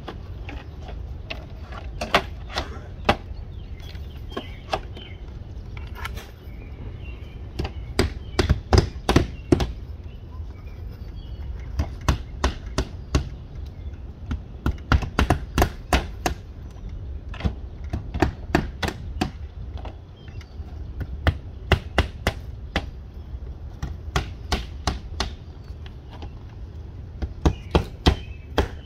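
Hand hammers driving nails along the top edge of vinyl siding panels into the wall, in quick runs of sharp strikes with short pauses between nails.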